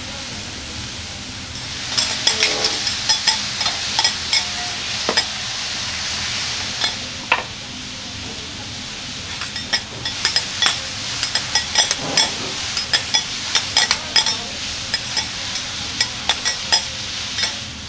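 Food sizzling on a teppanyaki flat-top iron griddle while metal spatulas clack and scrape against the plate in quick runs of taps. The tapping starts about two seconds in, eases off briefly in the middle and picks up again.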